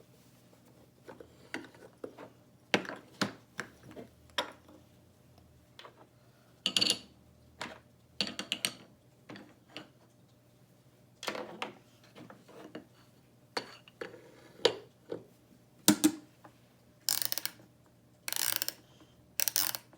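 Wooden toy microwave and its wooden play food being handled: scattered clicks and knocks, with a few short rattling bursts, the longest near the end.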